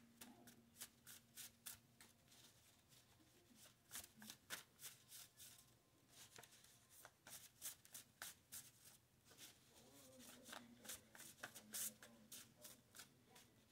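Tarot cards being shuffled by hand: soft, quick, irregular flicks and snaps of the cards, a few each second.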